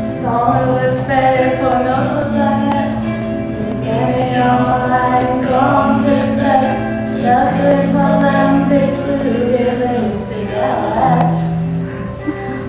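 A young man and a young woman singing a song together as a duet, with held accompanying notes underneath.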